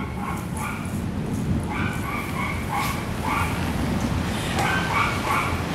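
A dog whining, a steady run of short, high-pitched whimpers about two or three a second.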